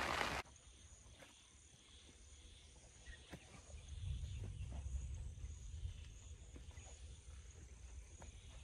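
Rain pattering on an umbrella cuts off suddenly about half a second in. Faint outdoor ambience follows: a steady high chirring of insects, low wind rumble on the microphone swelling in the middle, and a few soft clicks.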